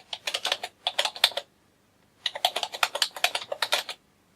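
Typing on a computer keyboard: two quick runs of rapid key clicks with a short pause between them, about one and a half seconds in.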